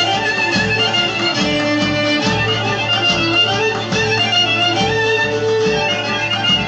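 Greek Thracian folk music for the Zonaradikos dance: a bowed string melody over a steady drum beat.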